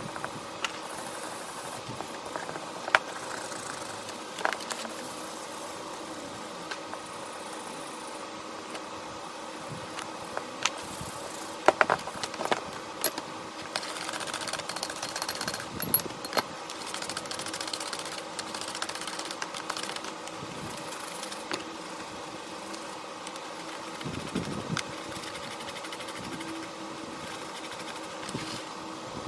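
A machine motor running steadily in a workshop, with scattered sharp metallic clicks and knocks, a cluster of them about twelve seconds in.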